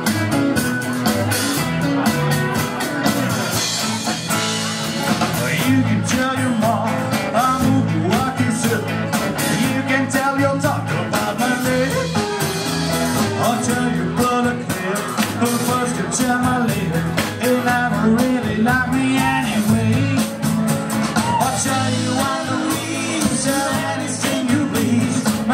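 Live country band playing a song with guitars and a singer over a steady beat.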